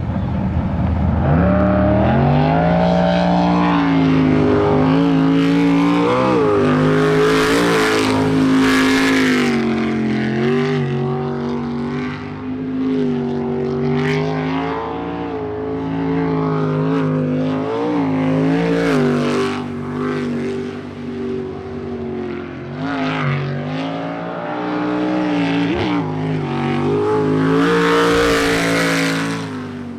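Sprint boat's jet-drive racing engine at high revs during a timed run, its pitch climbing as it launches about a second in, then repeatedly dropping and rising again as the boat works through the turns of the course.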